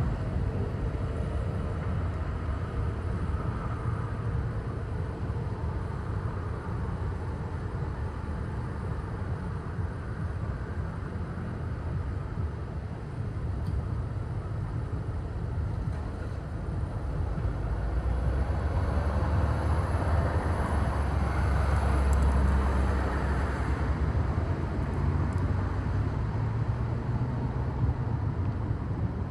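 Low, steady rumble of a motor vehicle with road noise, growing louder for several seconds about two-thirds of the way through.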